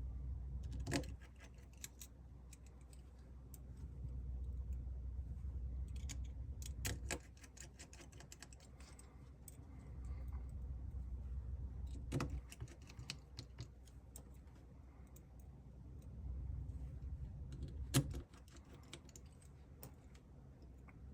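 Small sharp clicks and taps from phone parts and screws being handled during reassembly of a smartphone, four louder clicks spaced several seconds apart. A low hum runs in stretches of a few seconds, each stretch ending at one of the louder clicks.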